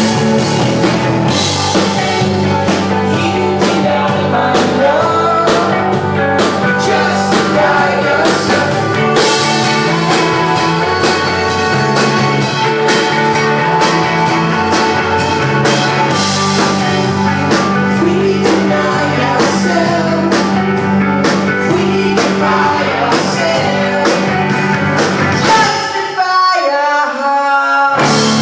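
Live rock band playing a song: electric guitars, drum kit and a sung lead vocal. Near the end the drums and low end drop out for about two seconds, then the full band comes back in.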